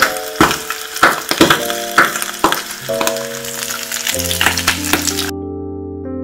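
Sliced braised pig's trotters sizzling and crackling on the hot plates of an electric waffle maker: a steady hiss full of sharp pops, which stops about five seconds in. Background music plays throughout.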